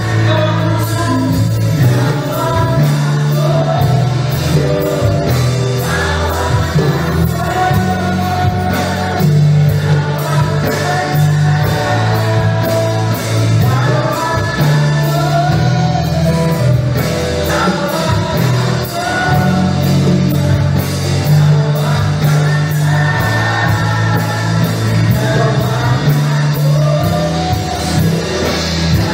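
Live contemporary worship band playing a song: several voices singing together over electric guitar, keyboard and sustained low bass notes, with a steady beat.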